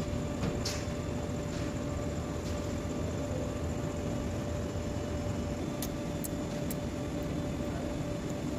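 Car engine idling steadily, with a few light clicks about a second in and around six seconds in.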